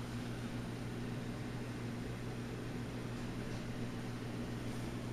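Reef aquarium's pumps and powerheads running: a steady low electrical hum with a hiss over it.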